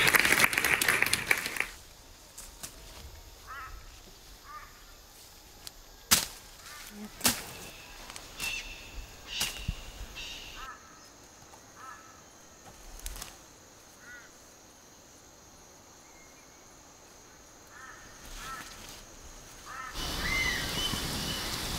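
A loud rush of noise cuts off within the first two seconds. Then come faint bird calls, short chirps every second or two, and a few sharp clicks over a quiet background. About twenty seconds in, a louder tropical forest ambience with birds comes in.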